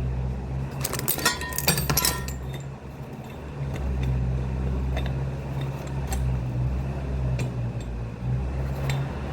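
Metal tools and parts clinking together as they are handled, with a cluster of ringing clinks about a second in, then a few light taps over a steady low hum.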